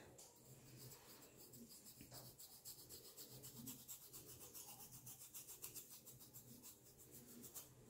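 Faint scratching of a fine-tooth comb raking through short hair against the scalp in quick, repeated short strokes, several a second, combing out dandruff flakes.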